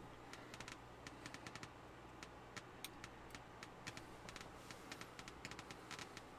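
Near silence broken by faint, irregular light clicks and ticks, several a second, over a low hum.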